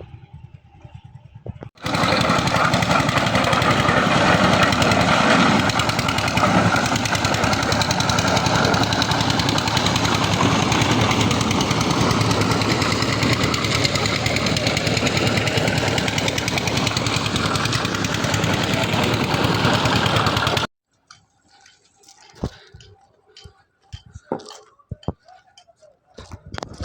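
A loud power tool running hard with a rapid hammering rattle. It starts suddenly about two seconds in and cuts off abruptly near the end, followed by a few sharp knocks.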